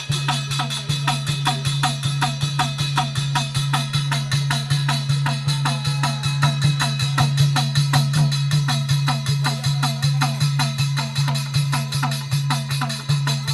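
Rajasthani folk music: a fast, even percussion rhythm of about six strokes a second, each stroke with a short falling twang, over a steady low drone.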